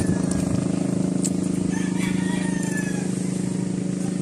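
A small engine running steadily at idle with a fast, even pulse. A bird calls faintly about two seconds in.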